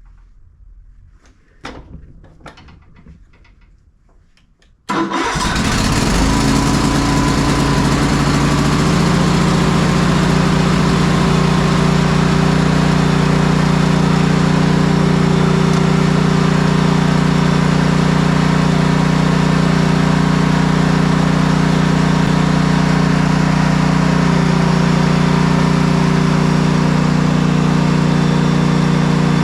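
A few light knocks, then about five seconds in the Cub Cadet mower's 679cc fuel-injected MTD single-cylinder engine fires almost at once with no long cranking and settles into a steady run. This is the mower starting promptly after its loose battery and solenoid connections were tightened.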